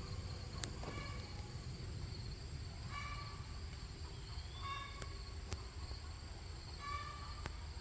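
Outdoor ambience of insects droning steadily, with a short call repeating about every two seconds and a low rumble of wind.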